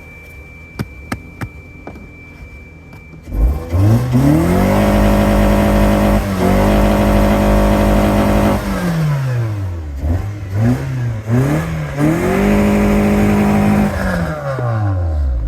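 Toyota Tercel's four-cylinder engine, quiet with a few clicks at first. About three seconds in it is revved hard: the pitch climbs quickly and is held high for several seconds, then falls, blips a few times, climbs and holds again, and falls back near the end. It is being run hard after a Seafoam treatment to clean out a misfire.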